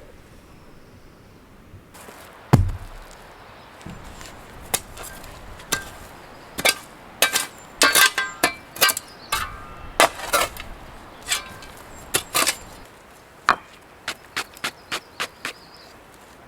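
A series of sharp knocks on wood, irregular at first, with a heavy thud a couple of seconds in and a quick even run of about three strikes a second near the end, as of hammering on lumber.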